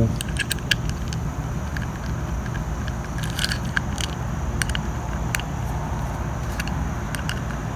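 Small, irregular metallic clicks and scrapes from handling a trimmer blade, a nut and an Allen wrench while fastening the blade's Allen screw onto a bladed trimmer head. A steady low rumble runs underneath.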